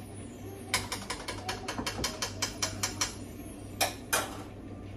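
A quick run of about a dozen light, sharp clicks, then two louder clacks near the end: kitchenware being handled at the stove.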